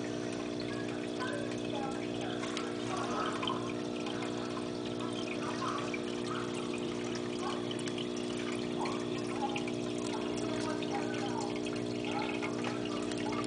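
Aquarium filter running: water trickling and bubbling steadily over a constant electrical hum.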